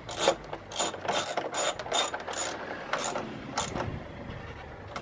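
Ratchet clicking in short, irregular strokes while driving in the T20 Torx screws that hold the front air intake section; the clicks thin out and stop about four seconds in.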